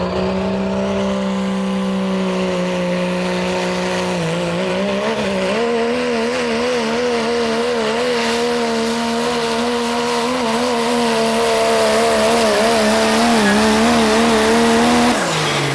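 Dodge Ram pickup's Cummins diesel engine held at high revs under full load as it pulls the weight sled. Its pitch steps up about four seconds in and wavers while held there, and the engine lets off suddenly near the end.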